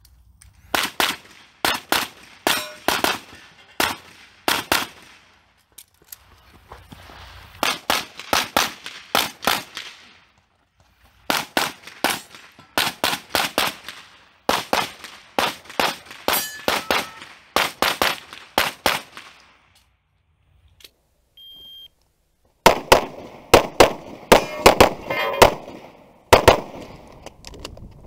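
Strings of rapid pistol shots from a practical-shooting competition run, several quick shots at a time with short pauses between strings. About 21 s in a short electronic beep sounds, the shot timer's start signal, and from about 23 s a new, louder string of shots comes from an open-division pistol close to the microphone.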